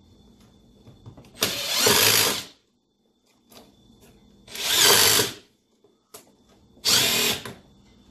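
Hand-held power drill run in three short bursts of about a second each, with pauses between them.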